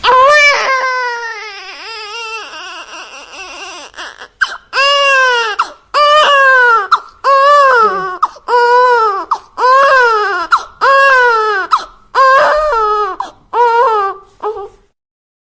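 Baby crying: one long wail, then a run of short cries, each rising and falling in pitch, about one a second. The crying stops shortly before the end.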